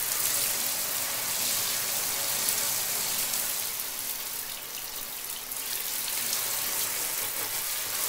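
Shower running: an even spray of water falling, dipping slightly in loudness about halfway through.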